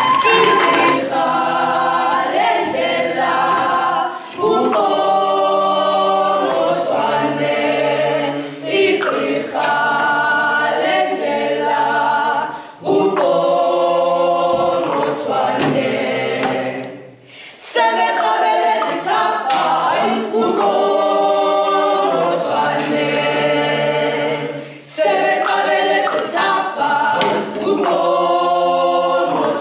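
A choir singing a cappella in harmony: several voices sung in phrases broken by short pauses, the longest about 17 seconds in.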